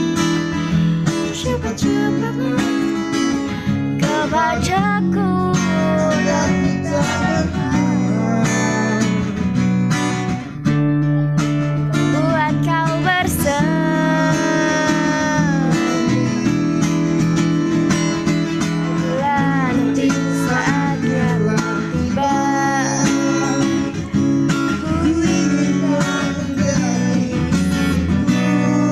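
Guitar music: strummed and plucked guitar with a melody that slides up and down in pitch over steady low notes.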